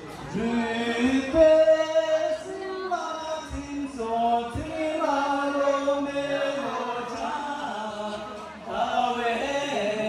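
A group of men singing a Tibetan toast song (chang-shey) together without accompaniment, in long held notes that step from pitch to pitch.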